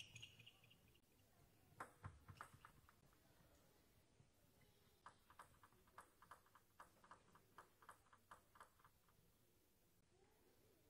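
Faint light clicks of a table tennis ball being bounced, a few about two seconds in, then an even run of about four bounces a second, the usual bouncing of the ball before a serve.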